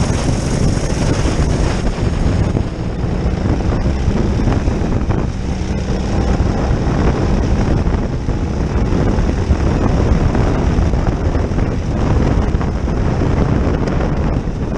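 Racing kart's engine running at speed, with heavy wind noise on the onboard microphone.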